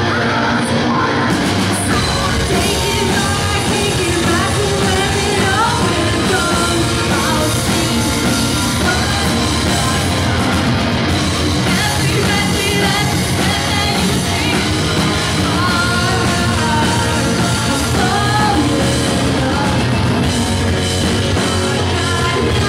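Live melodic post-hardcore band playing loudly: electric guitar, bass guitar, keyboard and drum kit, with a female vocalist singing and yelling into a microphone.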